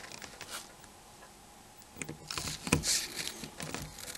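Small clicks and scrapes from handling a screwdriver and phone parts: fairly quiet at first, then a run of light ticks and rustles in the second half.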